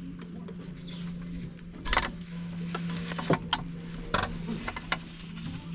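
A handful of sharp metallic clicks and knocks, spaced a second or so apart, from hand tools and parts being worked on around the gearbox in a car's engine bay. A steady low hum runs underneath.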